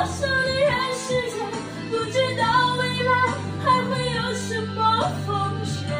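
A woman singing a melody in Mandarin Chinese, with steady low instrumental notes underneath that change every few seconds.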